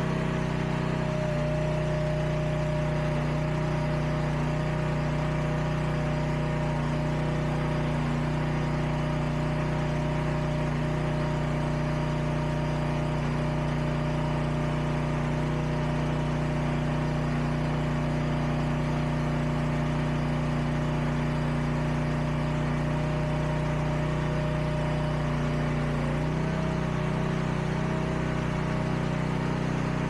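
Huayee SHY360 mini skid steer's engine running steadily while its hydraulics lift a 500-pound load of rock bags. The tone changes about a second in and again near the end.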